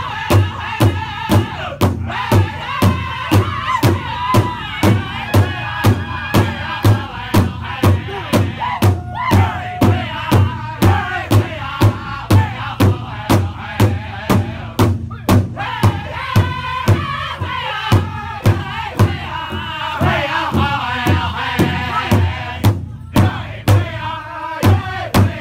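Powwow drum group singing a crow hop song, the men's voices in unison over one large hand drum struck together in a steady beat of about two strokes a second.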